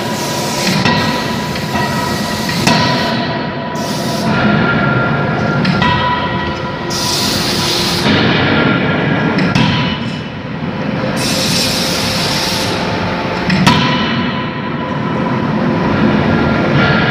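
Fully hydraulic die forging hammer at work on hot steel: steady machine noise with whining tones, bursts of hissing, and one sharp hammer blow near the end.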